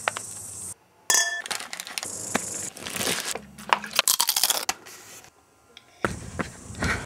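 A quick run of short close-up sounds cut one after another: a brief ringing clink, crisp crunching of a tortilla chip being bitten and chewed, and drinking from a glass near the end.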